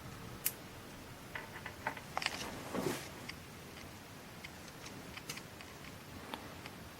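Faint, scattered clicks and taps of handling at the motherboard's power-switch header pins as they are shorted to start the computer, with a small cluster about two to three seconds in and a few lighter ticks later.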